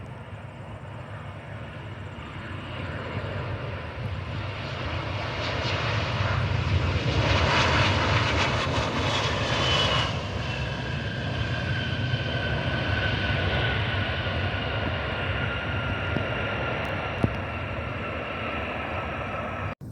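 Airbus A320 jet airliner passing on its landing approach: the engine noise builds to a peak about eight seconds in, then a whine falls in pitch as it goes by, and the sound slowly fades.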